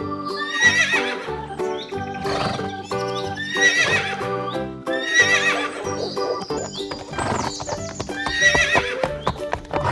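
A horse whinnying four times over cheerful background music.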